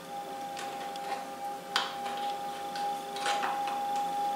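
Screwdriver turning a small screw into a moped seat hinge: a few separate, irregular light clicks of metal on metal, over a steady high tone in the background.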